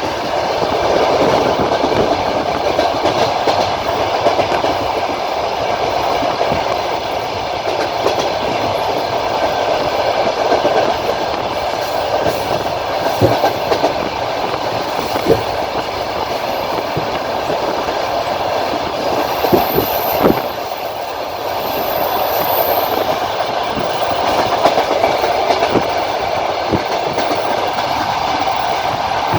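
Passenger train carriage running at speed, heard from an open window: a steady rush and rumble of wheels on the rails, with a few sharp clacks as the wheels cross rail joints.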